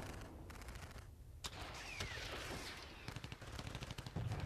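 Faint gunfire sound effects with scattered sharp clicks, and a short falling tone about two seconds in.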